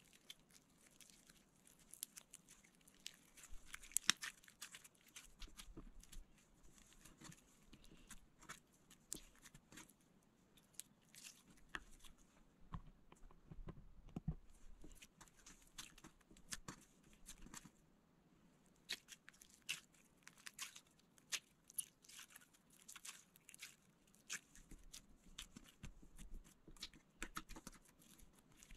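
Slime with clay mixed into it being squeezed, kneaded and pressed by hand, giving faint, irregular little clicks and crackles, with a quieter pause about two-thirds of the way through.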